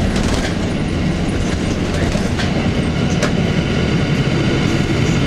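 2002 Blue Bird CS transit bus with a Cummins ISC diesel under way: a steady, loud drone of engine and road noise, with a few sharp rattles or clicks.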